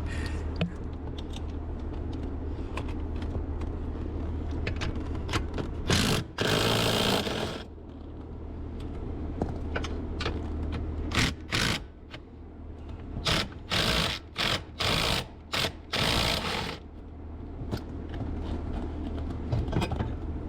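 A power tool running in bursts as it backs out the steering column's upper mounting bolts: one longer run of about a second and a half, then a quick string of short pulses, over a steady low hum.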